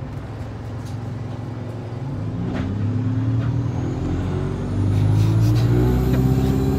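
A passenger vehicle's engine heard from inside the cabin, its pitch climbing as it accelerates and then levelling off, with a faint high whine rising alongside. A few light knocks and rattles of the cabin.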